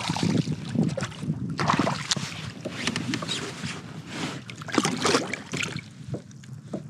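A hooked largemouth bass thrashing and splashing irregularly at the water's surface beside a kayak as it is played in.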